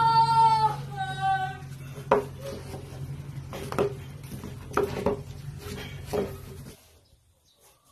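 Plywood pieces knocked and set down on a plywood shelf: about five sharp wooden knocks a second or so apart, each with a short ringing tail. Two short held sung notes come at the start, and a low hum runs underneath until about a second before the end.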